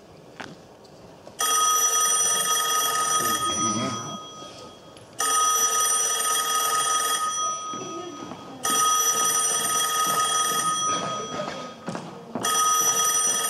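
Telephone ringing, four long electronic rings about three and a half seconds apart, each a steady multi-tone ring that fades out before the next. It is played as a stage sound effect while an actor waits with a phone to his ear.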